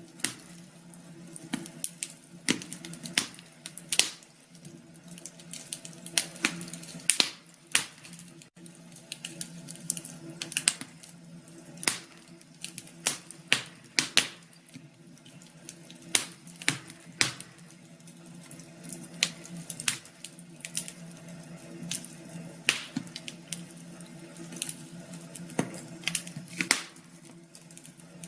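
Wood fire crackling, with irregular sharp pops and snaps scattered throughout.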